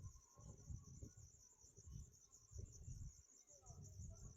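Crickets chirping in a steady, rapid high-pitched trill, with faint irregular low rumbles underneath.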